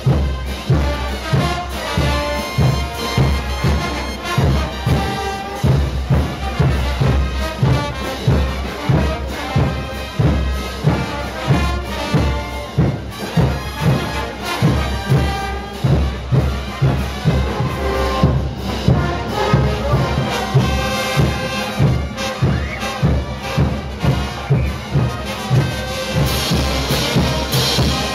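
Parade brass band playing live: trumpets, trombones and sousaphones over a bass drum and hand-held crash cymbals, on a steady beat of about two a second. The cymbals come through brighter and louder near the end.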